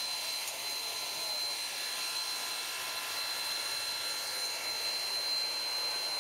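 Steam hissing steadily from a standing steam tank locomotive, with a thin high whistle held over it.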